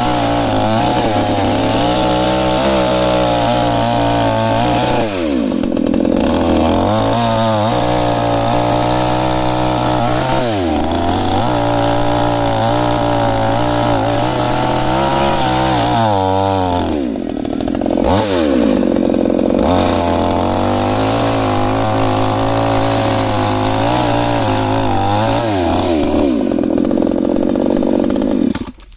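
Chainsaw engine running hard, its pitch dipping and recovering about five times, then cutting off abruptly near the end.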